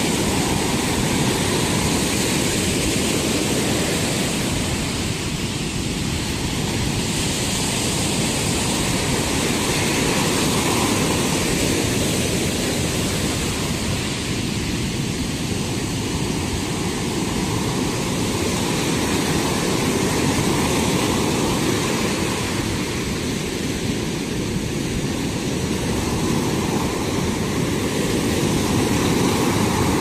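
Ocean surf breaking and washing up a sandy beach: a steady rush of rough waves that swells and eases every several seconds.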